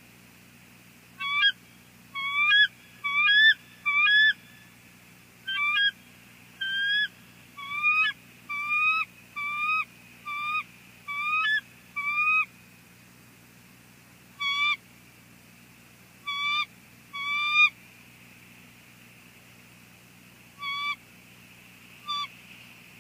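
Bald eagles calling on the nest: about twenty short, high, chattering calls, each a quick rising note, in runs with pauses of a few seconds, as the pair come together to mate.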